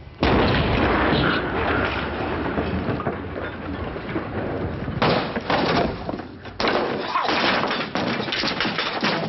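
An explosion goes off just after the start, followed by several seconds of debris crashing and clattering down. There are two more sudden loud crashes about five seconds in and a second and a half later.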